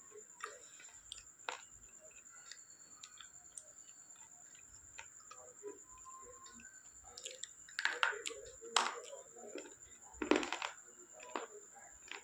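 Slate pencil being bitten and chewed close to the microphone: sharp crunches and clicks, with a cluster of louder crunches about eight to ten and a half seconds in.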